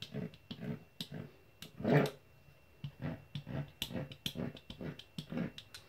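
Fluted pastry wheel rolling and pressing through sheeted dough onto a wooden board in quick short strokes, about three a second, cutting rows of slits for chebakia.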